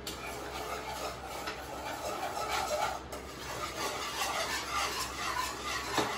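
A wire whisk beating thick white sauce in a nonstick frying pan: a steady, rhythmic scraping and clicking of the wires against the pan, about three or four strokes a second, with one sharper click near the end.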